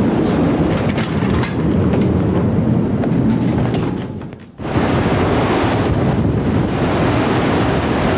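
Strong wind buffeting a camcorder's microphone during a tornado, a loud continuous rumble and rush. The rumble dips and fades about four seconds in, then cuts back in abruptly.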